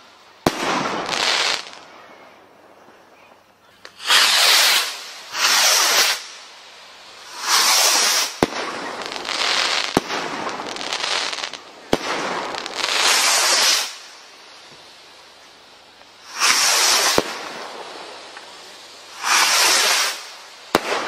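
Sky Ultra 160g Category 3 firework rockets fired one after another: repeated hissing whooshes of about a second each, with sharp cracks from the bursts in between.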